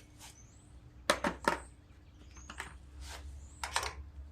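Sharp metallic clicks and clinks of hand tools and parts being handled while taking the carburetor off a small engine: three quick clicks about a second in, then a few more around three to four seconds, over a faint low hum.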